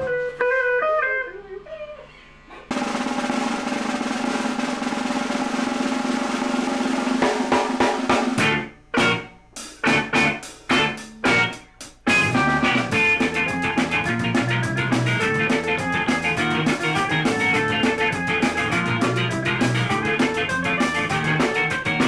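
Ska-punk band rehearsing: electric guitars through a Marshall amp with drums. It opens with a few picked guitar notes, then a held, ringing guitar chord from about three seconds in, a run of short stop-start hits about eight seconds in, and from about twelve seconds the full band playing steadily with drums.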